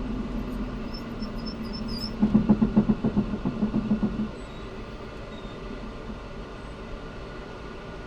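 A steady mechanical hum, with a louder pulsing throb of about six or seven beats a second for some two seconds near the middle.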